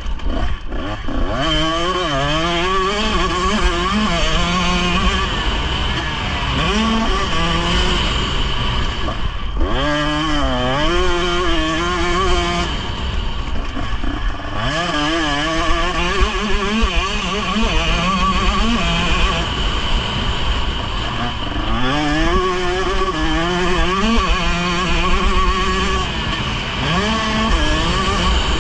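Motocross dirt bike engine heard from on the bike, revving up and dropping back again and again as the rider accelerates, shifts and rolls off for the corners, with a couple of brief throttle-off lulls.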